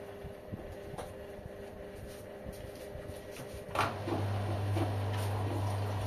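Two LG front-loading washing machines running quietly. About four seconds in there is a sharp click, then a steady hum with rushing water as one machine starts moving water.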